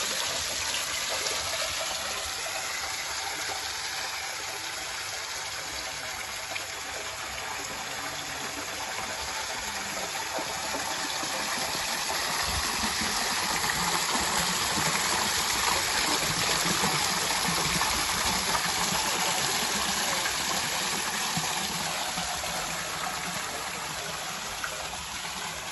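Fountain jets from penguin-shaped spouts and a wall spout splashing steadily into a garden fish pond, a continuous gushing of water that grows louder in the middle and eases off near the end.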